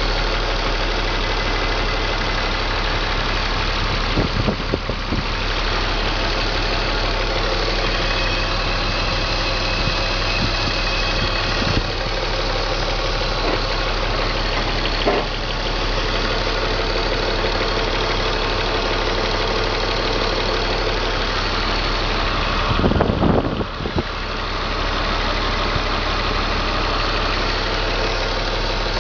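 BMW M54 2.5-litre straight-six idling steadily, with a few brief irregular thumps and stumbles through the run. The engine misfires on cylinders 3 and 5 on cold starts.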